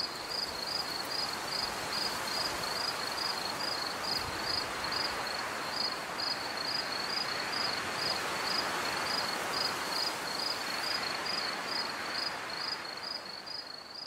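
Crickets chirping at an even pace, about two or three chirps a second, over a steady hiss of night ambience; the sound fades out near the end.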